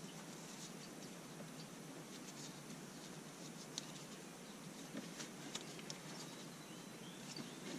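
Faint rustling of braided Dyneema rope being wrapped and worked through a fisherman's knot and drawn tight by hand, with a few soft ticks.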